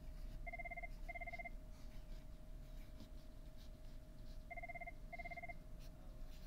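Telephone ringing twice, the rings about four seconds apart, each ring a pair of short warbling electronic beeps.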